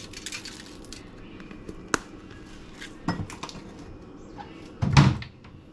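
Crushed red pepper flakes shaken from a jar onto aluminium foil, a fine rattling patter in the first second. Then come a sharp click and a few knocks of handling on the counter, the loudest near the end.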